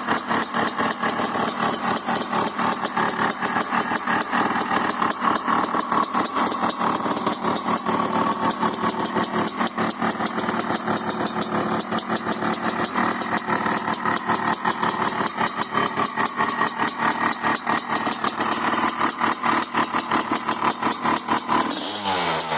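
1995 Honda CR500R's 491 cc single-cylinder two-stroke engine idling steadily, with rapid, slightly uneven firing pulses. Its pitch starts to rise near the end.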